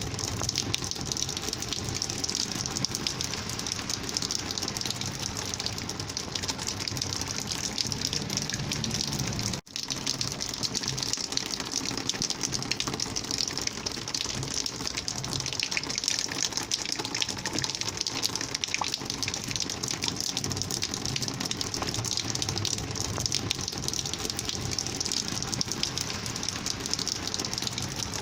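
Rainwater flowing and gushing in a steady, continuous rush. The sound drops out for a split second about ten seconds in, then carries on unchanged.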